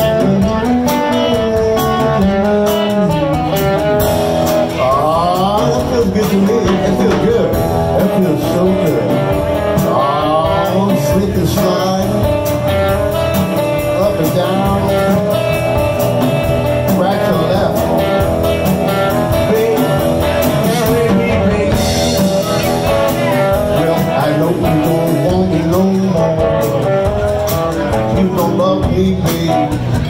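Live blues band playing an instrumental break: electric guitar, upright double bass and drum kit, with a harmonica cupped against the vocal mic, its notes bending in places.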